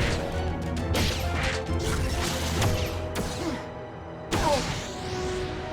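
Cartoon sound effects of mechanical clanking, crashes and whooshes over background music as a washing machine is transformed into a monster. The effects fade briefly about four seconds in, then a sudden hit comes with a falling swoop.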